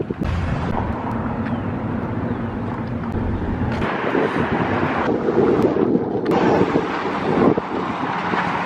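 Wind buffeting the microphone, mixed with street traffic. A heavy low rumble eases about four seconds in, leaving a steadier rushing noise.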